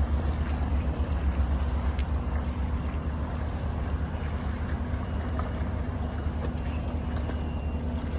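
Steady wind rumbling on the microphone, a deep, fluttering buffeting with no clear individual events.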